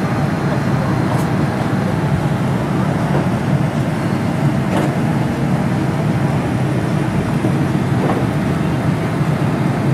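Steady rushing hum of cabin air and aircraft systems inside a Boeing 787-9 standing at the gate, with a few faint clicks.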